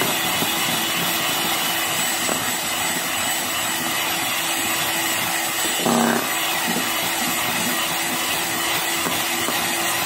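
Electric hand mixer running steadily at speed, its beaters whipping a thick cream-cheese filling in a stainless steel bowl. There is a brief louder moment about six seconds in, and the motor cuts off abruptly at the end.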